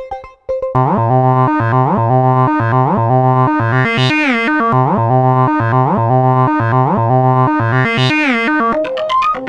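Synthesizer background music. After a brief gap, loud keyboard chords pulse about twice a second, with a rising sweep twice. Near the end it switches to quick plucked notes.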